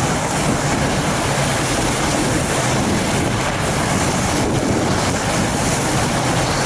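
Steady rushing wind noise on the microphone of a camera riding along on a fat bike over a groomed snow trail, mixed with the bike's rolling noise.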